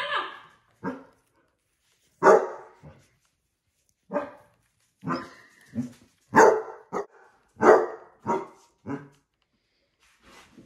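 Basset hound barking at a heart-shaped foil balloon, about a dozen short, loud barks in irregular groups, some in quick pairs, stopping about nine seconds in.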